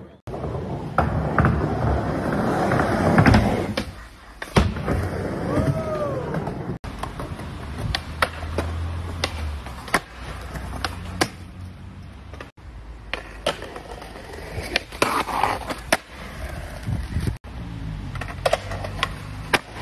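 Skateboard wheels rolling over stone and concrete, with sharp clacks of the tail popping and the board landing, and the board scraping along a stone ledge. The sound cuts abruptly three times as one short clip gives way to the next.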